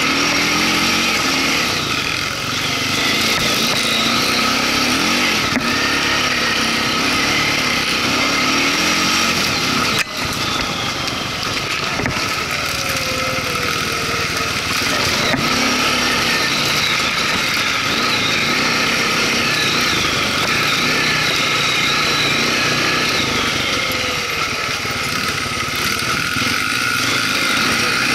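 Small off-road engine heard from on board, running under load and revving up and down with the throttle on a rough dirt trail. A single sharp knock about ten seconds in.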